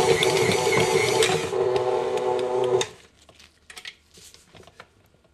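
Stand mixer running with its dough hook kneading pizza dough in a steel bowl, a steady motor whine that stops abruptly about three seconds in. A few faint clicks and handling sounds follow.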